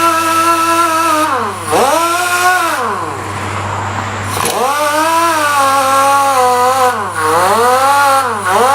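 Power tool motor whining at a steady high speed, its pitch sagging several times as it is pressed into the work and bogs down, then spinning back up when the load eases.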